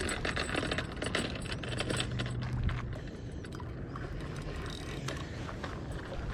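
Fishing reel being cranked while playing a hooked fish: rapid clicking and rattling from the reel's gearing, with a low hum for about a second, about two seconds in.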